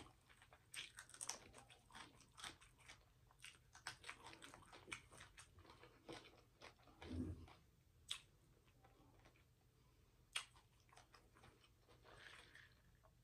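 Close-miked chewing: many small wet mouth clicks and smacks of someone eating, thinning out to a few isolated clicks after the middle, with a short hum from the eater about seven seconds in. Near the end comes a brief soft sip through a drinking straw.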